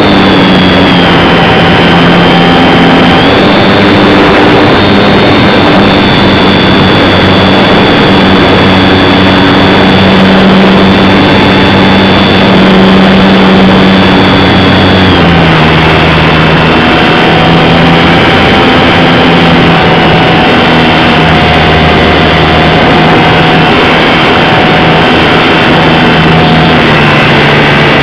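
Electric motor and propeller of a radio-controlled Super Cub model plane in flight, heard from a camera mounted on the plane: a loud, steady high whine over a rushing noise. The whine shifts in pitch with the throttle a few times, dropping noticeably about 15 seconds in.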